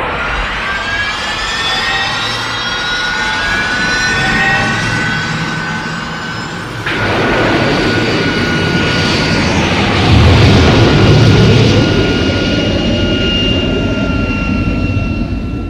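Custom Mechagodzilla sound effect: a jet-engine-like mechanical roar with several high whining tones over a rumbling noise. About seven seconds in it shifts suddenly to a louder, deeper rumble under a steady whine, which swells and then starts to fade near the end.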